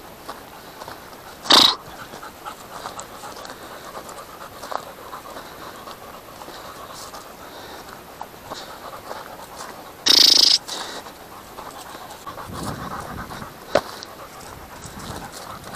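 A dog panting close by, with two short loud sounds about one and a half seconds and ten seconds in, and a sharp click near the end.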